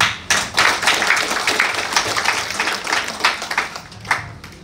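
Audience applauding: a burst of many hands clapping that thins out and stops about four seconds in.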